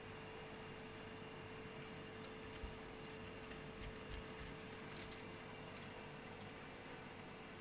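Quiet room tone with a steady hum, and a few faint clicks and taps near the middle, as from things being handled.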